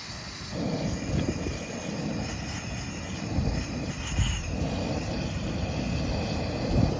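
Portable gas camp stove burner running with a steady rushing sound that starts about half a second in.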